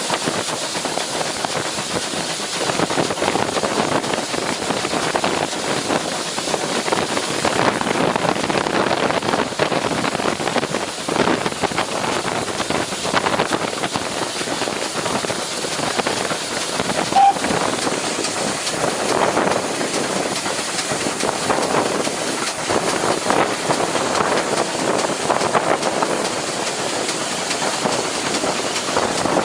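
A train running, a steady rumble and hiss that swells and fades every couple of seconds, with one short high-pitched note about two-thirds of the way through.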